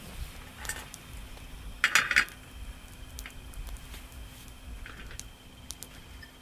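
A steel frying pan set down on a portable butane stove's metal pot supports, with a short clatter about two seconds in, then a few light clicks and knocks as it is settled.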